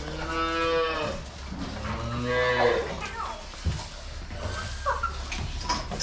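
Dairy cow mooing twice, each call about a second long, followed by a few short knocks over a steady low hum.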